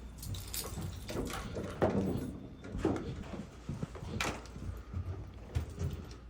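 Footsteps with scattered knocks and clicks at uneven intervals.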